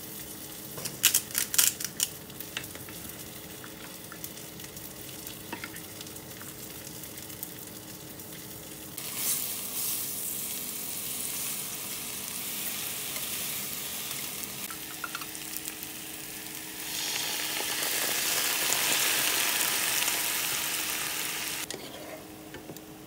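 Cabbage wedges frying in oil in a nonstick frying pan: a steady sizzle that starts about nine seconds in, grows louder for a few seconds near the end, then drops back. A few sharp knocks are heard about a second in.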